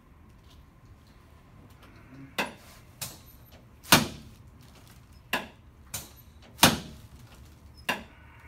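Chiropractic treatment table knocking and clacking, about seven sharp knocks over five seconds, the loudest about four and seven seconds in.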